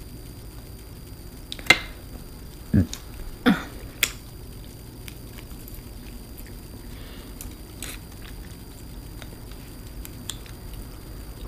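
A person eating seafood: wet chewing and squishing, with a few sharp clicks and two short sounds falling in pitch about three seconds in.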